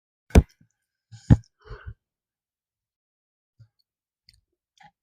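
Close-miked eating sounds: two sharp clicks about a second apart with short, softer chewing noises around them, then a few faint clicks near the end.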